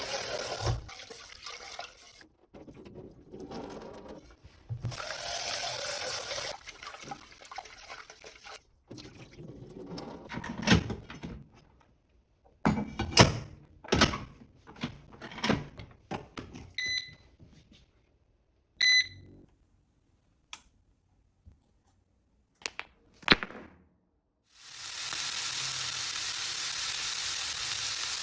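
Kitchen sounds: water running from a tap in spells, knocks and clatters of dishes or utensils, and two short electronic appliance beeps about two seconds apart. Steady running water starts near the end.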